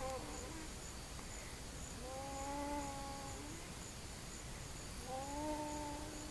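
Stridor: a drawn-out, pitched, crowing sound on each breath, recurring about every three seconds, each holding a fairly steady pitch. It is the sign of a partly narrowed upper airway.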